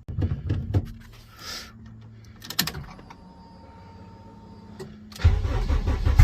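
Turbocharged Honda K20 engine, running on an open downpipe with no exhaust, starting about five seconds in after a few clicks and a faint steady whine. It runs loud and gets louder near the end.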